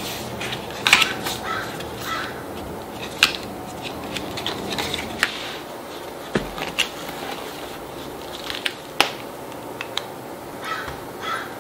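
Hands handling paper and a hardcover sketchbook: paper rustling and pressing, the cloth-covered book set down and opened, with scattered short rustles and a few sharp taps over a steady background hiss.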